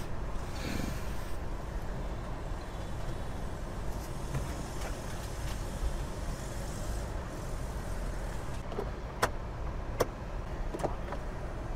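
Low, steady rumble of a car, with a few sharp clicks near the end.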